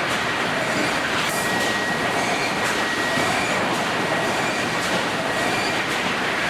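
Sawmill edger line running: a steady clatter of conveyors and rollers, with a thin high saw whine that comes in about a second in and holds.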